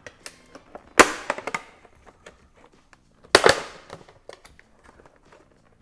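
Hard plastic blister pack being cut open: two loud crunching snaps of the stiff plastic, about a second in and again about two seconds later, with smaller clicks and crinkles between.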